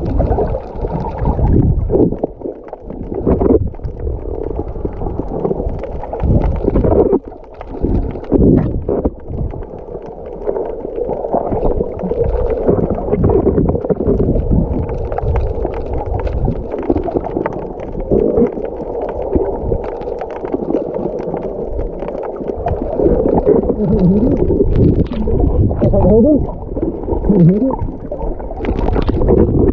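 Muffled water sloshing and gurgling with low rumbling that rises and falls unevenly throughout.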